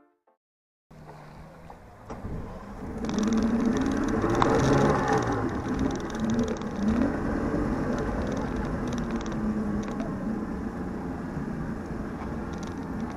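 Motorboat engines running on the water. After a brief silence the engine noise builds from about three seconds in, with a wavering pitch as one craft passes close by, then settles to a steady drone.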